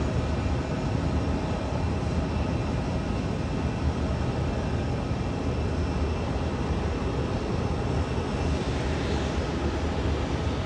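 Jet airliner engines running, a steady noise with faint steady tones that does not change.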